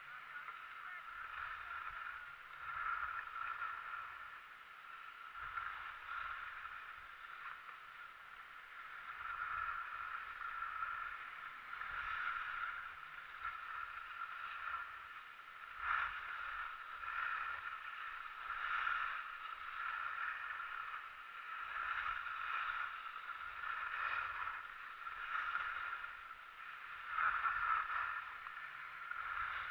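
Skis sliding and scraping over packed snow, a hissing noise that swells and fades with each turn every two to three seconds, with bursts of low rumble.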